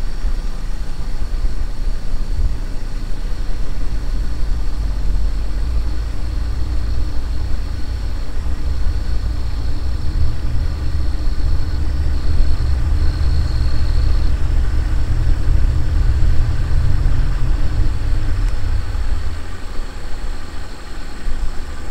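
Low, steady rumble of a car's engine and road noise, heard from inside the vehicle as it drives slowly.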